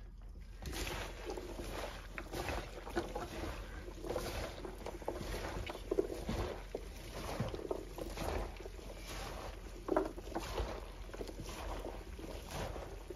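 Gloved hands tossing and mixing seasoned chopped vegetables in a large aluminium pot: a continuous irregular rustling of the pieces, with many small clicks and taps as they hit one another and the pot.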